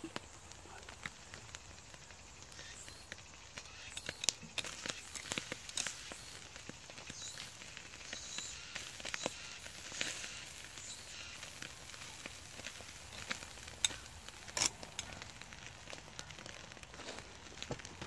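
Wood campfire crackling under a wire grill, with a whole hairtail fish sizzling faintly on it. Scattered sharp clicks and snaps run through it, a few louder ones about a quarter of the way in and again past the middle.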